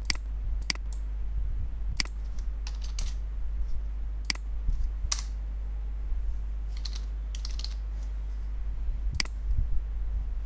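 Computer keyboard being typed on: scattered, irregular key clicks, some single and some in quick little runs, over a steady low hum.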